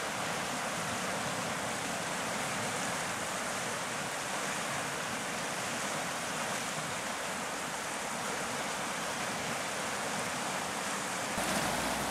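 Fast-flowing mountain river, a steady rush of moving water. Near the end the rush becomes fuller and lower.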